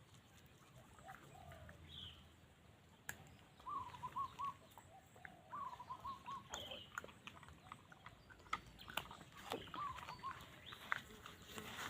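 A dog whimpering: short, wavering whines that repeat every couple of seconds, mixed with a few brief sharp squeaks and light clicks.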